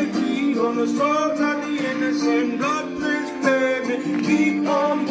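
Music: a song with a man singing a melody over a steady instrumental backing.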